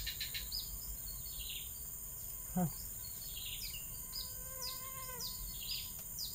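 Forest birds giving short, falling chirps again and again, over a steady high-pitched insect drone.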